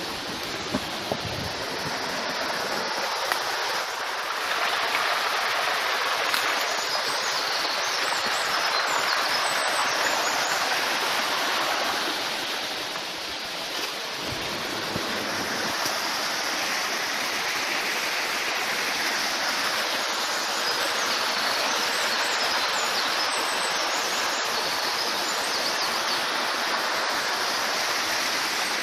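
A small creek running over rocks: a steady rushing of water, with a slight dip about halfway through.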